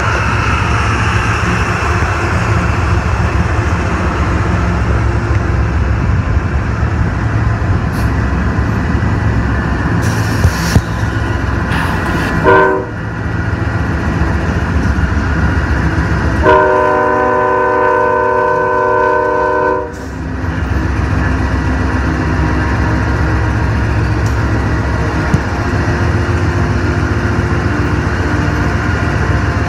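Norfolk Southern diesel freight locomotives rumbling steadily past, with the locomotive's multi-note horn giving a short toot about halfway through and then a longer blast of about three seconds.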